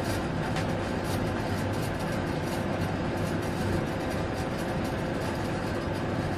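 Steady hum and hiss of a running machine, even and unchanging.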